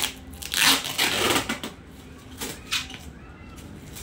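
Plastic bubble wrap crinkling and tearing as it is pulled and cut away from a cardboard box. It comes in several short bursts, the loudest about a second in.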